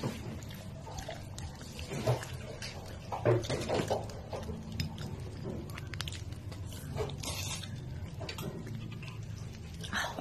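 Cooked buttered shrimp being peeled by hand and eaten: short wet cracks and smacks of shell and chewing, loudest about two and three and a half seconds in, over a steady low hum.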